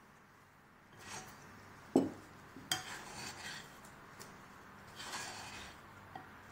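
Metal spoon scooping Nutella into cream cheese in a glass mixing bowl and stirring it, in short rasping scrapes against the glass. There is a loud dull knock about two seconds in and a sharp clink a moment later.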